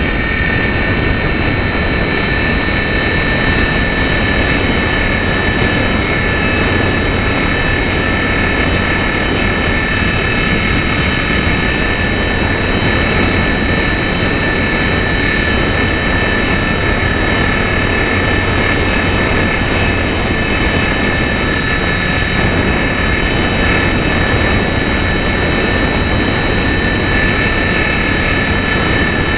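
Slow Stick RC plane's electric motor and propeller running at full throttle in a steady climb, heard from a camera mounted on the plane: a steady high whine of several tones over a steady rushing noise.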